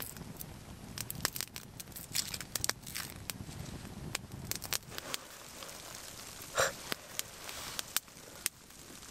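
Small twig fire crackling in a metal bushbox wood stove, with sticks being laid onto it by hand. Sharp pops come throughout, with one louder crackle about two-thirds of the way in.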